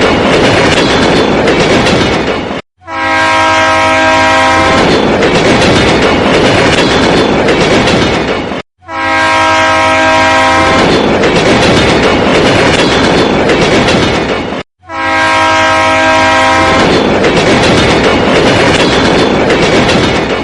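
Looped train sound effect: a train horn sounds for about two seconds over the rumble of a train running on the rails, then the rumble carries on alone. The loop cuts out briefly and starts over three times, giving about four repeats.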